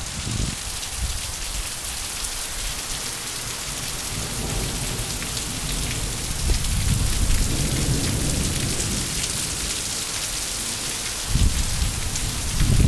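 Heavy downpour hissing steadily on roofs and foliage. A low rumble swells through the middle and comes back stronger near the end.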